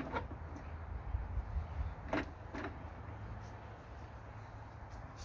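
A few short knocks and clunks as someone works on an old Ford tractor: one right at the start, then two close together a little past two seconds in, over a low steady rumble.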